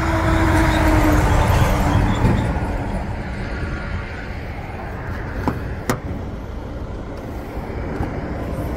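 A vehicle passing on the highway: road noise swells over the first two seconds and fades away. Two sharp clicks come about five and a half and six seconds in.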